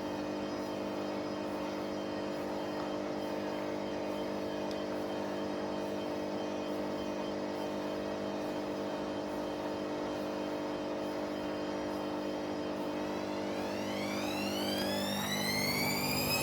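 Washing machine on a spin cycle: the motor and drum run with a steady hum. Near the end a whine rises in pitch and the sound grows louder as the drum speeds up.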